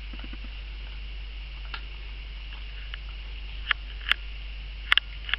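A few sharp, scattered clicks and taps from a small Yorkshire terrier moving about with a treat, several close together near the end, over a steady low hum.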